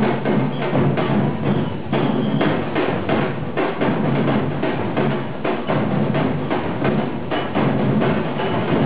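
Music with drums and busy percussion: dense, rapid clicking strokes over a steady low bass.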